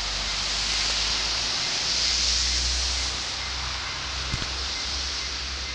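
Steady outdoor wind hiss with a low rumble of wind on the microphone, and a single short knock about four seconds in.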